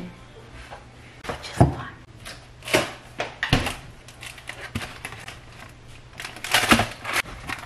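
A cardboard frozen-food box and its packaging being handled: irregular knocks, taps and crinkles, busiest near the end, over a low steady hum.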